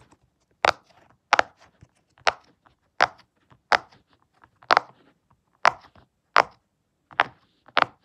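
A handheld fidget toy pressed over and over, giving about ten sharp pops, one every second or less.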